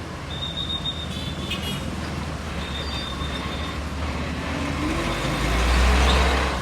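A city microbus driving past close by: engine rumble and road noise build and peak in a loud pass about five to six seconds in.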